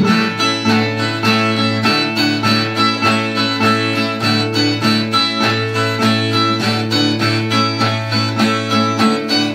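Brazilian viola, a ten-string guitar, played alone between sung verses: quick plucked notes about four or five a second over a steady low note.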